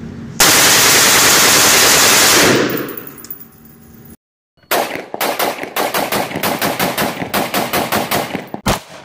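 Rapid gunfire from AR-style rifles fitted with a muzzle compensator. First comes a burst so loud it runs together into one continuous blast for about two seconds and then echoes away. After a brief gap of silence there is a quick string of sharp shots, about four or five a second for some four seconds, and a last single shot near the end.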